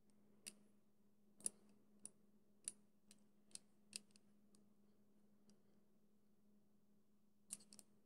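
Sharp, light metallic clicks and clinks from TCH 840 rigid handcuffs and their key being handled while worn, coming irregularly about every half second for the first four seconds, then in a quick cluster of three near the end.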